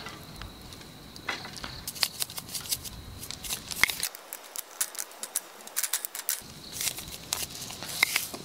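Metal tongs clicking and clinking against a wire grill basket as raw chicken thigh pieces are laid on it, a run of short irregular clicks. Near the end, seasoning is tapped out of a shaker over the meat.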